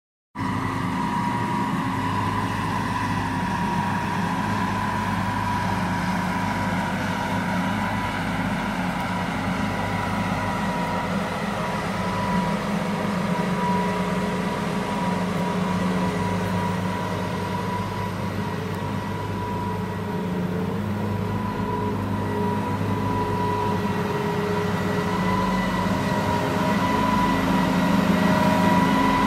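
Case IH combine harvester running in place: a steady engine drone with a constant high whine over it, growing a little louder near the end.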